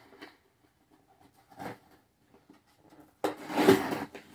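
Knife slicing through the packing tape on a cardboard box: faint scrapes, then a louder scraping cut lasting about a second near the end.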